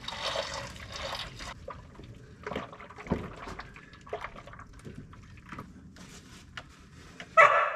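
Engine oil draining out of a tractor's sump into a container, with scattered light clicks and drips. A short, louder clatter comes near the end.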